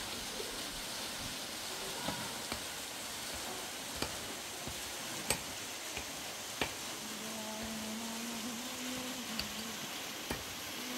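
Steady rushing hiss of a small waterfall and stream, with a few sharp clicks scattered through it and a faint distant voice about two-thirds of the way in.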